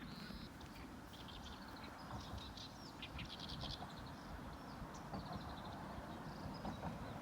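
Small birds chirping, with several short calls and quick trills of rapid repeated notes, over a steady low rumble.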